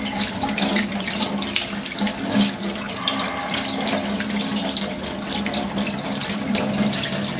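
Tap water running into a stainless steel sink and splashing over a sturgeon fillet as hands rub it under the stream, rinsing off the leftover brine spices and slime from the skin.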